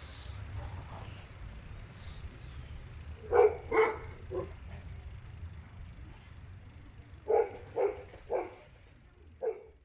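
An animal barking in short sharp bursts: three about three and a half seconds in, three more about seven seconds in, and two near the end, over a low steady hum.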